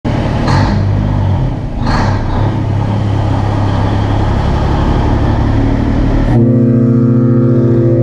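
Loud motor-vehicle engine running, with two sharp accents about half a second and two seconds in, then settling into a steadier, more even tone from about six seconds in.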